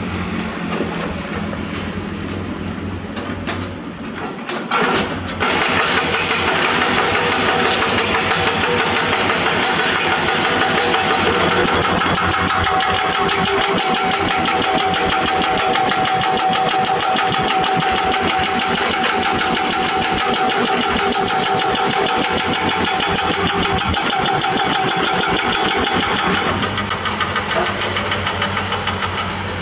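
Hydraulic rock breaker on a Komatsu PC200 excavator hammering limestone in a rapid, steady train of blows over the running diesel engine. The hammering starts about five seconds in and stops a few seconds before the end, leaving the excavator engine pulsing on its own.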